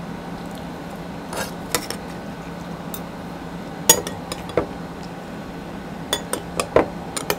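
Metal spoon clinking and scraping against ceramic plates and bowls while eating: scattered sharp clinks, the loudest about four seconds in, with a quick cluster near the end.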